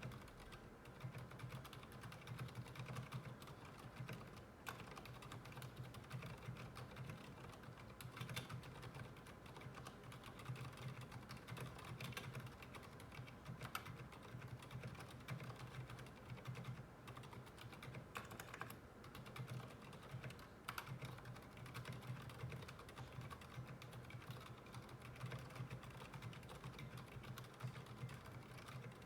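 Continuous typing on a mechanical keyboard fitted with Kailh BOX Silent tactile switches: a dense, quiet run of damped keystrokes.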